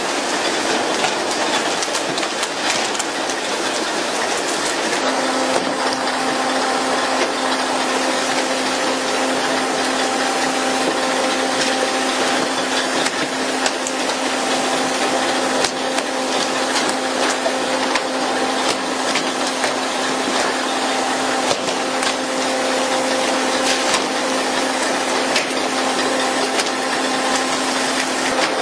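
Steady hiss of water spray from the fishing boat's sprinkler jets hitting the sea, with frequent sharp knocks and slaps as skipjack tuna are swung aboard on poles. About five seconds in, a steady low hum of boat machinery joins.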